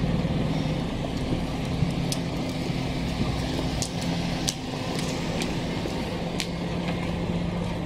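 Street traffic: a motor vehicle engine runs with a steady low hum over a background of street noise, with scattered sharp clicks every second or two.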